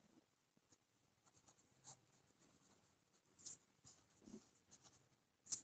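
Faint scratching of a pen writing on notebook paper, in short, scattered strokes.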